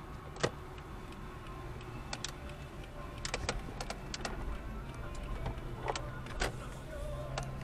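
Steady low hum of a moving car's cabin, with a dozen or so sharp, irregular clicks scattered through it.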